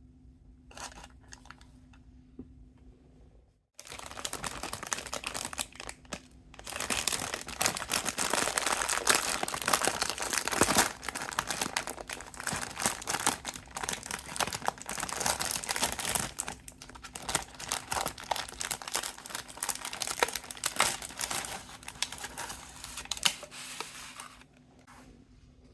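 Plastic snack packaging crinkling and rustling as it is handled and torn open: a few short rustles, then about twenty seconds of continuous, loud crackling that stops shortly before the end.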